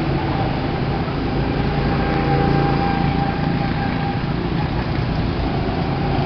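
Go-kart engines running on the track, a steady drone with one engine's note standing out through the middle.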